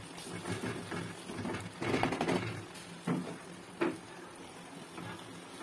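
Wooden spatula stirring and scraping chicken fry in a clay pot, with louder scrapes about two, three and four seconds in, over a steady low hum.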